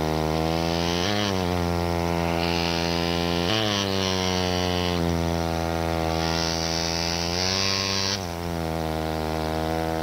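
Air-driven pneumatic chisel for trimming plaster dental models, a small jackhammer-like tool, running as a loud, steady buzz. Its pitch sags briefly three times: about a second in, about three and a half seconds in, and about eight seconds in.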